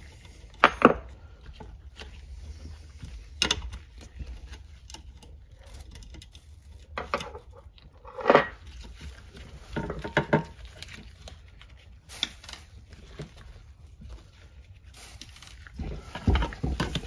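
Scattered metallic clicks and clinks of a wrench and small parts while the 10 mm nut is taken off the main terminal of a Porsche 914 alternator; about a dozen sharp taps at uneven intervals, the loudest about a second in.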